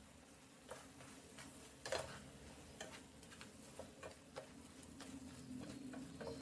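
Spatula clicking and scraping against a nonstick pan while stirring a thick chicken mixture: faint, irregular clicks, the loudest about two seconds in.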